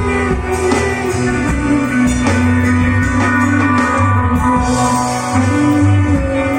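Live rock band playing a song: guitar over sustained bass notes and regular drum hits.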